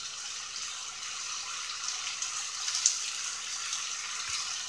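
Steak sizzling inside a George Foreman contact grill: a steady hiss of steam and grease, with one sharp grease pop a little under three seconds in.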